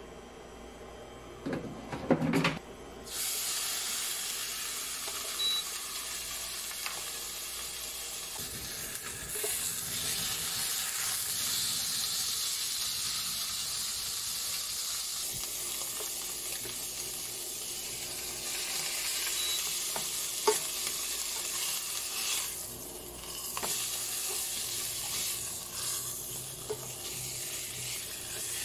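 A strip of pork frying in oil in a nonstick pan on an induction cooker: a few knocks about two seconds in, then a steady sizzle that starts abruptly and keeps going, with occasional small pops.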